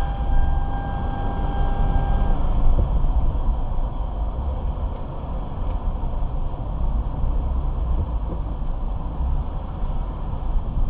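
Low, steady rumble of a car heard from inside the cabin. A steady tone sounds over it and stops about two seconds in.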